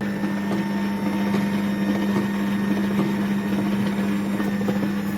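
Cold-press slow juicer's motor running with a steady low hum and a rough, grainy churning over it as cut oranges are pressed. It starts suddenly.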